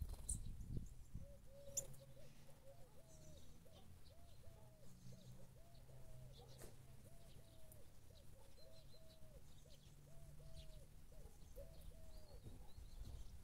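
A dove cooing, a long run of short, even coos at about one a second, over a faint low hum.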